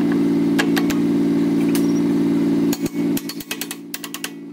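An engine running steadily with sharp metallic clicks or knocks over it. The engine sound breaks up and cuts off a little under three seconds in, and a few clicks follow.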